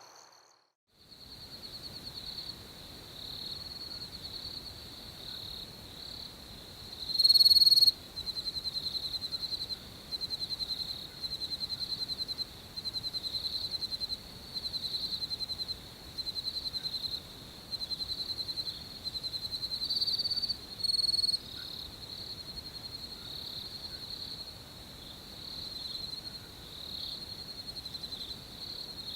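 Crickets chirping: a steady high, pulsed chirping, with louder trills repeating about once a second through the middle stretch and one loudest burst about seven seconds in.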